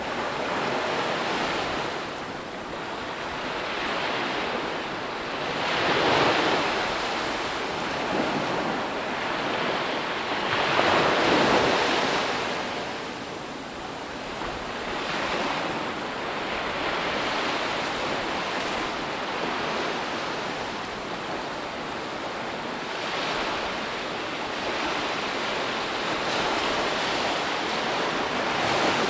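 Ocean waves washing in on a shore, a steady rush of surf that swells as each wave breaks, loudest around six and eleven seconds in.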